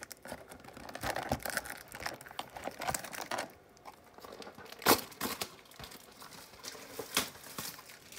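Packaging of a trading-card mega box being torn open: plastic wrapping crinkling and tearing in irregular crackles, with a couple of sharp snaps, the loudest about five seconds in.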